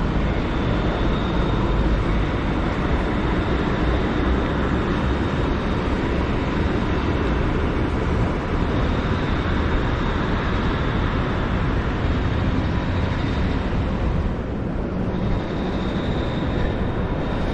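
Steady city street noise: a continuous low rumble of traffic, with a faint high whine that comes and goes.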